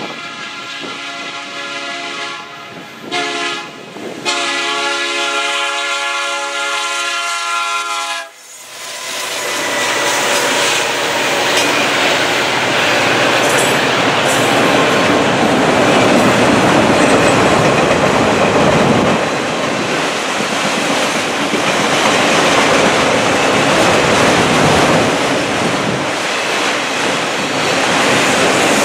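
Air horn of a Norfolk Southern freight train's lead diesel locomotive, an SD70M-2, sounding the close of the grade-crossing signal: a long blast, a short one, then a final long blast that stops about eight seconds in as the locomotive reaches the crossing. After it comes the loud, steady rumble and clickety-clack of the train's autorack cars rolling past at speed.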